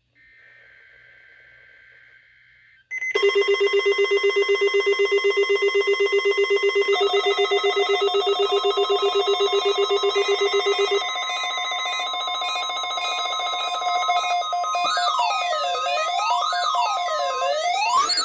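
Several weather alert radios sounding their alarms together on a weekly test signal. About three seconds in, loud rapid electronic beeping starts, several steady tones at once. Later a steady alarm tone holds, and near the end a siren tone rising and falling about once a second joins it.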